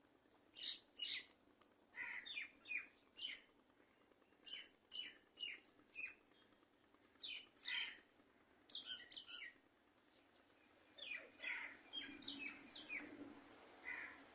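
Bird chirping: short, sharp high-pitched chirps in quick clusters of two to four, repeating every second or so, with a pause of about a second and a half around ten seconds in.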